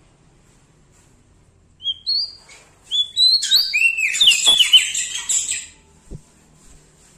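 Lombok prenjak daun songbird singing: a few short, high, upward-slurred chirps about two seconds in, then a rapid, dense burst of tumbling high-pitched notes lasting about two and a half seconds.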